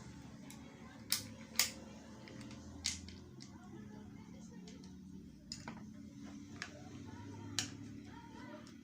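Sharp clicks and taps of tools and metal parts being handled while a Hilti power tool is taken apart, three louder ones early and a few lighter ones later, over a low steady hum.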